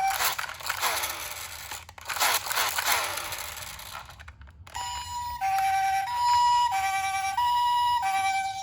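Toy ambulance minicar's electronic two-tone hi-lo siren, alternating between two pitches about every half second. For the first four seconds it gives way to a rattling, rushing noise, then the siren comes back about five seconds in and stops near the end.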